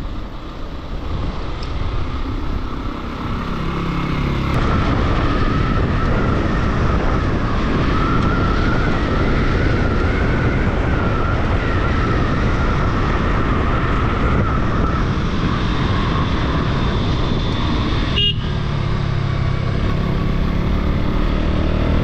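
A road vehicle's engine running steadily with road and wind noise; the engine note rises about three seconds in as it picks up speed, and there is a brief break near the end.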